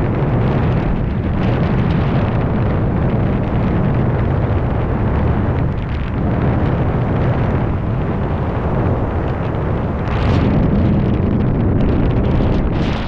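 Heavy wind rushing over and buffeting the camera's microphone during a fast speedflying descent: a loud, steady low rumble that gets brighter and louder for a moment about ten seconds in.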